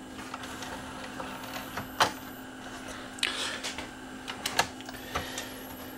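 Plastic clicks and knocks from a CD player's disc-tray mechanism being pressed and fitted back into its chassis by hand, with a sharp click about two seconds in, a brief scrape a little after three seconds and a few lighter clicks near the end.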